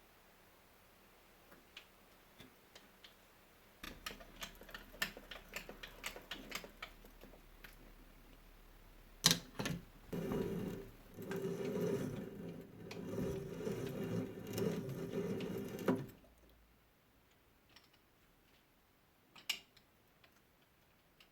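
Workshop sounds: a run of light metallic clicks and taps, one sharp click, then a machine running with a steady hum for about six seconds before stopping, and one more click near the end.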